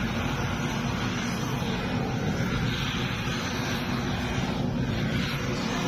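Workshop machinery running steadily, a continuous low hum with a noisy hiss above it.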